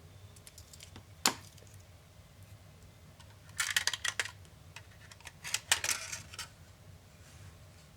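Small hard clicks and rattles from a laptop and its parts being handled during disassembly: one sharp click about a second in, then two short bursts of rapid clicking and rattling in the second half.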